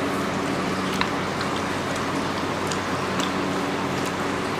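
Eating sounds: scattered small clicks of fingers mixing rice on plates and of mouths chewing, over a steady hiss with a low hum.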